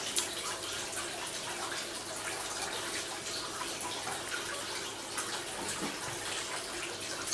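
Steady rushing hiss of background noise, with a few faint clicks of a metal fork on a ceramic plate.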